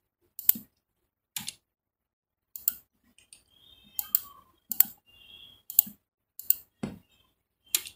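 Computer mouse clicking: single sharp clicks at irregular intervals, about nine in all.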